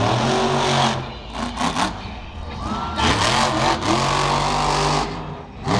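Monster Energy monster truck's supercharged V8 engine revving hard, in two loud bursts: one at the start and another from about three to five seconds in, easing off between them.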